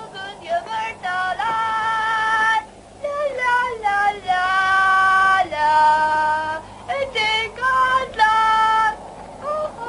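A high voice singing a slow melody in held notes that step up and down, phrase by phrase, with short breaks between.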